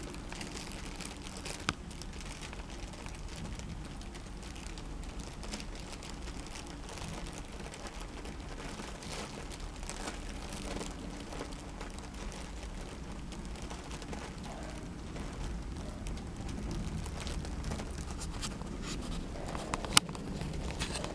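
Soft crinkling and rustling as kittens move about inside a plush tent-shaped cat bed, with a sharp click near the end.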